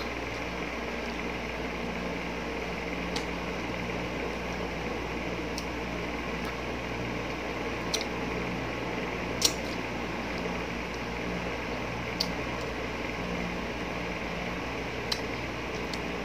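Close-up eating sounds of a ripe mango slice being bitten and sucked: a few short wet mouth clicks and smacks every two or three seconds, over a steady hum.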